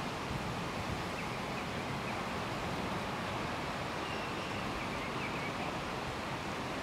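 Steady, even wash of wind and sea surf.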